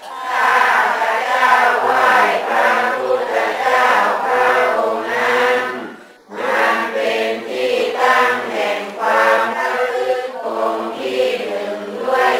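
A group of voices chanting in unison in held, pitched phrases, with a short break about six seconds in.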